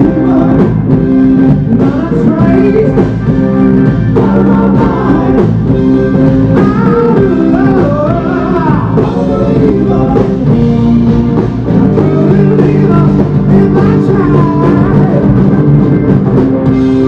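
Live rock band playing loudly: electric guitar over a drum kit and keyboard, with a wavering lead melody line.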